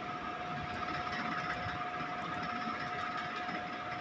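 Steady machine hum with a constant whining tone, like room equipment running, with a few faint ticks over it.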